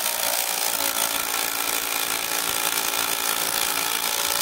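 Kobalt XTR 24V brushless impact driver in assist mode hammering steadily as it drives a screw.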